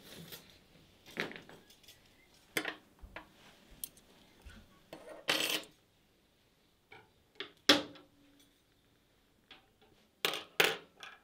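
Metal surgical instruments clinking and clattering against one another and the wooden table as they are handled and set down: a string of separate clinks with short quiet gaps, one ringing briefly about eight seconds in and a louder pair near the end.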